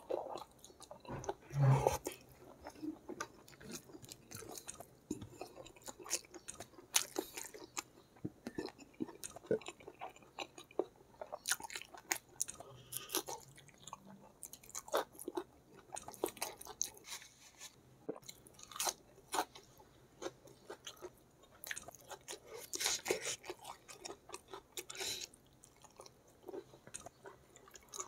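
A person chewing a mouthful of rice and spicy stir-fried squid close to the microphone: irregular chewing, smacking and mouth clicks.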